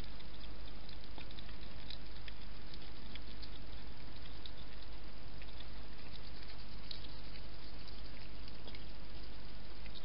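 Steady hiss and low hum from a night camera's microphone, with faint, irregular small ticks and clicks scattered through it.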